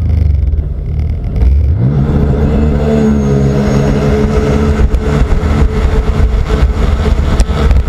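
Sea-Doo race jet ski's engine opening up from the start. Its pitch climbs about two seconds in, then holds high and steady at full throttle, over a heavy low rumble of wind and water.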